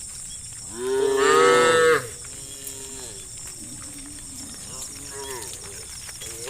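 Cows mooing: one loud, long moo about a second in, then several softer, shorter moos, and another loud moo beginning at the very end.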